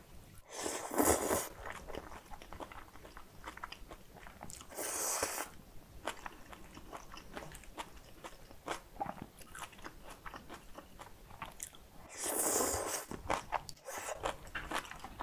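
Close-miked eating of cold spicy kimchi noodles: steady wet chewing with crunchy bites of kimchi, broken by three loud slurps about one, five and twelve seconds in.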